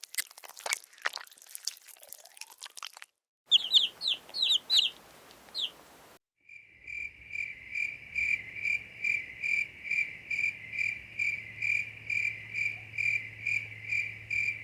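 Three short animal-sound clips in turn: about three seconds of crunching clicks, then five high, quick downward chirps, then a steady high-pitched pulsing trill of about two and a half pulses a second.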